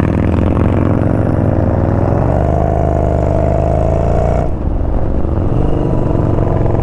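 Yamaha Bolt's air-cooled V-twin pulling hard under throttle, its note rising for about four seconds. The note briefly drops out about two-thirds of the way through, then the engine pulls again.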